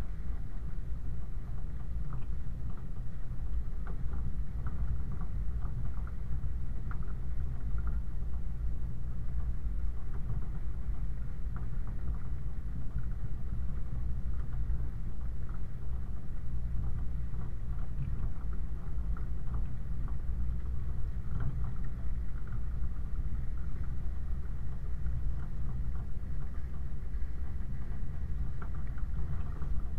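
Land Rover 90 driving along a rough gravel track, heard from the rear of the vehicle: a steady low engine and drivetrain rumble, with frequent small clicks and rattles from the body and the stony surface.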